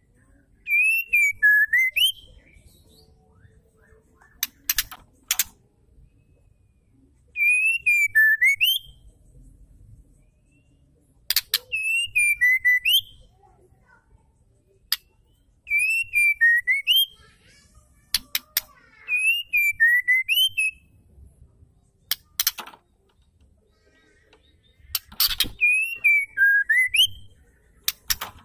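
White-rumped shama calling in six whistled phrases a few seconds apart, each a falling then rising whistle with a high, scratchy twitter over it. Sharp clicks come between several of the phrases.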